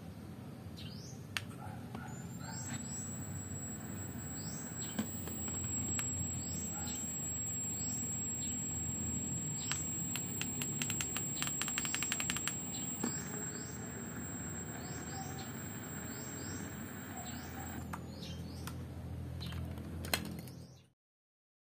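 Birds chirping in the background, short falling chirps repeating about once a second, over a steady background hum and a thin high whine. Scattered clicks, with a quick run of clicks about ten to twelve seconds in. The sound cuts off abruptly near the end.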